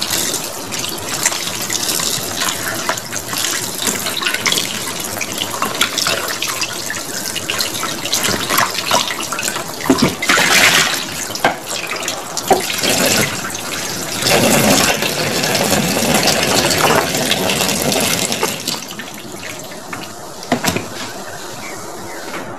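Kitchen tap running into a stainless steel sink while fish are rinsed by hand in a plastic tub, water splashing and sloshing, with louder splashes around the middle as the tub is tipped out. The running water stops near the end.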